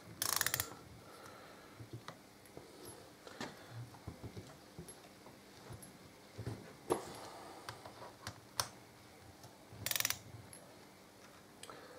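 Torque wrench ratchet clicking in two short rapid runs, one just after the start and one about ten seconds in, while tightening brake caliper bolts. Single clicks and light knocks of metal tool and caliper parts being handled come in between.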